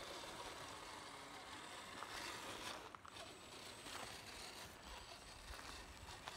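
Redcat Gen8 1/10-scale RC crawler driving slowly over dry dirt, twigs and pine needles: faint crunching of its tyres on the ground with a few small clicks.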